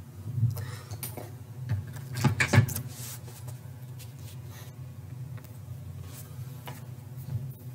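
A few knocks and clatters of handling in the first three seconds, then fewer, over a steady low hum.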